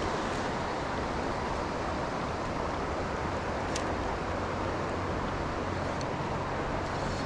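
Steady rush of a flowing river's current.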